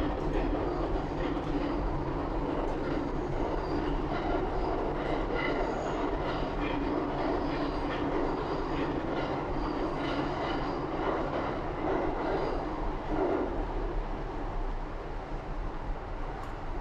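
A train running past: a steady rail rumble with faint high ticks and squeals of wheels on track, easing slightly near the end.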